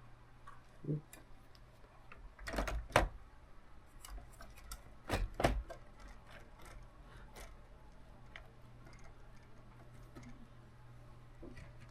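Plastic building-block floor sections being handled and pressed into place on the model: light clicks and taps, with two louder clusters of clicking about two and a half and five seconds in, over a low steady hum.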